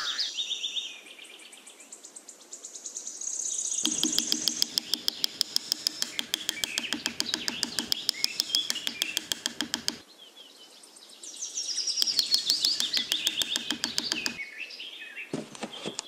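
A small hammer taps a wooden stick post down into sand in two runs of rapid, even taps, several a second. Birds chirp in the background.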